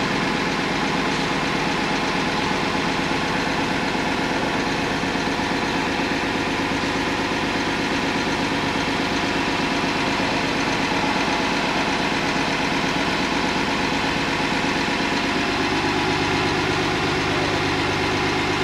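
A motor vehicle engine idling steadily, with a slight change in its low hum near the end.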